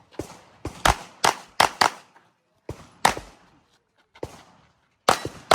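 Handgun shots fired in quick pairs and strings, about ten in all, with short pauses between strings.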